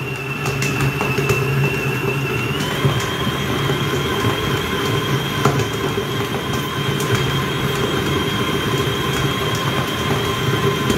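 Electric stand mixer running steadily, kneading a wet bread dough in its steel bowl. A high motor whine steps up slightly in pitch about two and a half seconds in, over a low hum.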